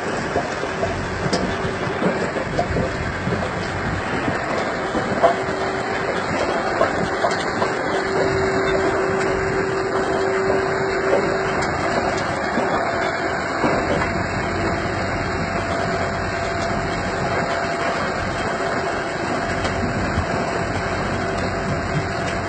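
Massey Ferguson tractor running under load while pulling a two-row Harmak sugar beet harvester, a steady mix of engine noise and rattling, clattering machinery.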